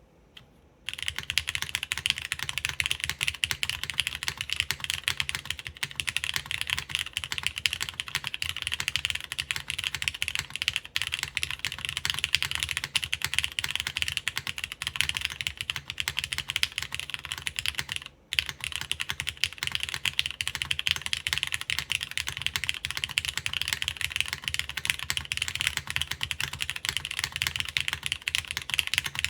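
Fast, continuous typing on a Plywrks Spyder TKL mechanical keyboard in o-ring mount, with lubed Cherry MX Black clear-top linear switches, a half aluminium plate and GMK keycaps. It starts about a second in, with a brief pause about eighteen seconds in.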